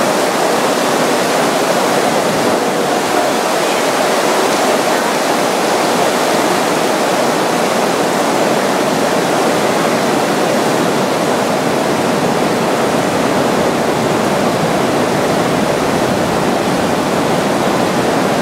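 Heavy rain pouring down, a loud steady hiss with no breaks.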